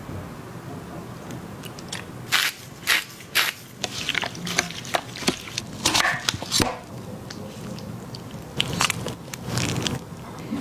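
Kitchen knife cutting a raw potato into thick sticks on a wooden cutting board: a run of sharp, crisp cuts and knocks on the board, one much louder than the rest, then a few softer ones near the end.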